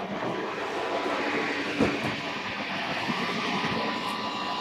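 Steady machinery hum and hiss from a yacht's engine room, heard as its door is opened, with a faint steady tone in it and a single knock about two seconds in.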